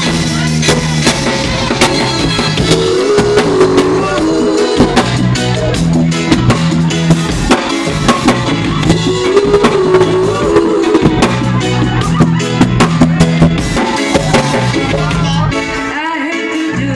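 Live band music with a drum kit and an electric bass keeping a steady beat under melody lines. About fifteen seconds in, the drums drop out and the music gets quieter.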